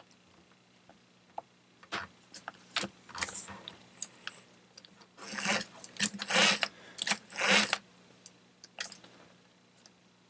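Clicking and light metallic rattling as the wheel nut and wheel of a Tamiya Toyota Hilux RC model are twisted and worked loose by hand. A few scattered clicks come first, and a dense burst of clatter follows about five to eight seconds in.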